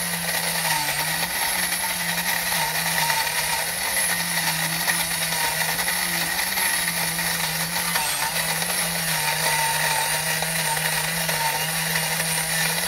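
Cooks electric burr coffee grinder running steadily, its motor humming while the burrs grind freshly roasted beans at a medium-fine setting.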